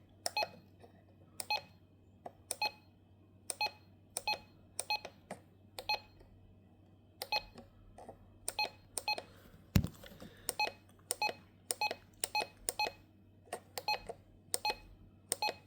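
RadioShack 12-261 weather alert radio giving short electronic key beeps, one per button press, irregularly spaced and often in quick pairs, as its alert settings menu is scrolled through. A single light thump comes about ten seconds in.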